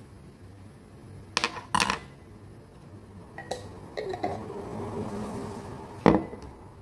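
Kitchen utensils clinking and knocking against a stainless steel cooking pot: two sharp clinks about a second and a half in, lighter clatter in the middle, and a louder knock near the end.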